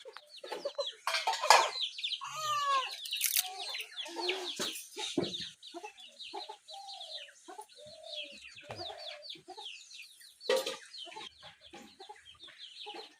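Many birds chirping and calling in quick short notes throughout, with a few louder sharp knocks about a second and a half in and again near ten seconds.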